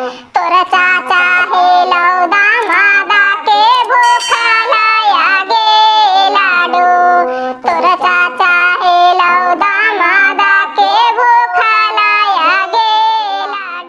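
A high-pitched, pitch-shifted cartoon voice sings a mournful Bhojpuri bidai song, the bride's farewell song, in long bending phrases.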